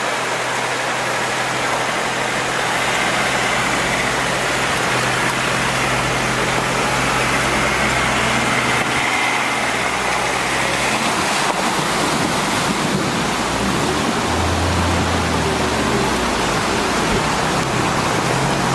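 Off-road SUV engine running under a loud, steady rushing noise, the engine hum briefly stronger about three quarters of the way through.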